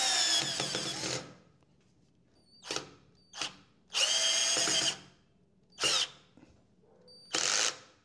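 The Black Tools TB12A 12V cordless drill-driver drives a long screw into pine in short trigger bursts, its small motor whining and dipping slightly in pitch under load. A first run stops about a second in, then come five short bursts as the screw is driven fully home. The low-quality bit cams out once along the way.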